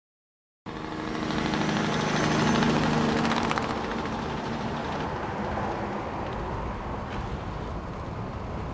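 Tractor diesel engine running steadily, from International Harvester 1066 tractors pulling forage wagons, with a hiss of noise over it; the sound cuts in abruptly just after half a second in.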